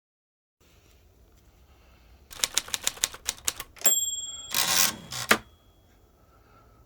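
A quick run of about eight sharp clicks, then a short steady beep and a brief rustling scrape ending in two more clicks.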